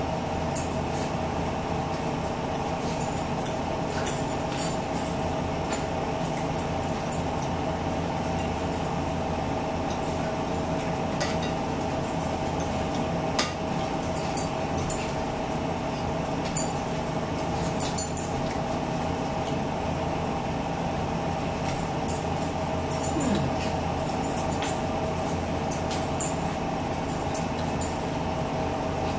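Forks clicking and scraping against plates now and then, over a steady mechanical hum with one constant tone.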